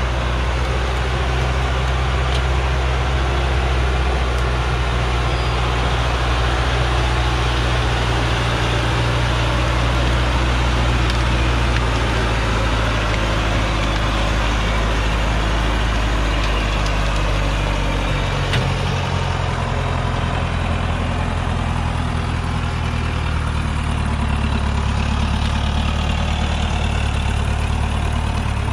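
Loaded Hoa Mai truck's diesel engine running steadily under load as it crawls through deep mud. The engine note drops to a lower pitch about two-thirds of the way through.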